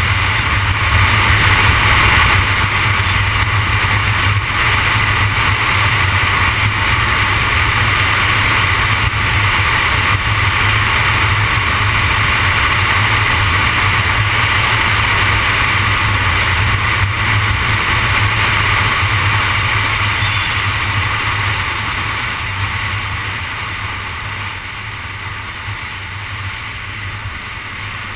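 Steady road and wind noise of a car being driven: a low rumble with a hiss over it, gradually getting quieter over the last several seconds.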